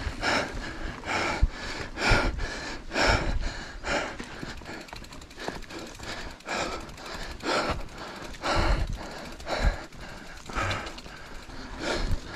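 A mountain biker breathing hard while pedalling uphill, one loud breath about every second, the heavy breathing of climbing effort.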